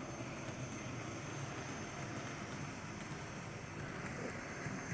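N scale model train running along the track: a steady faint rattle and whir, with light scattered clicks of the wheels over rail joints.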